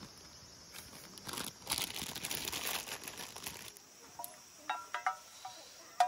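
Wood fire crackling in a small box stove, then a few light metallic clinks from a metal mug being handled, the last one the loudest.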